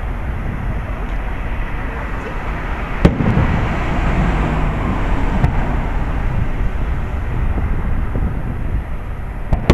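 Aerial fireworks shells bursting: one sharp boom about three seconds in and another crack near the end, over a steady background rumble.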